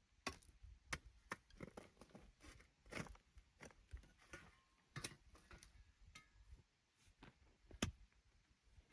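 Faint, irregular light taps and knocks, a few a second, with one sharper knock near the end.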